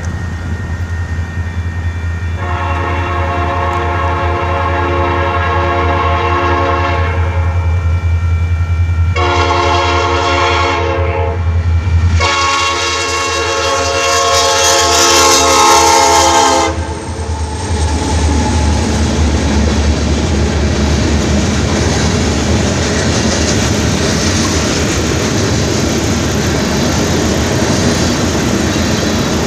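Freight train's locomotive air horn sounding three multi-tone blasts at a railroad crossing, a long one, a shorter one, then the loudest and longest. After the horn, the train's cars rumble steadily past the crossing.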